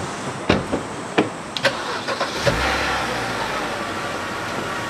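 Car doors of a BMW 3 Series sedan shutting with several sharp knocks. About two and a half seconds in the engine starts and then runs steadily.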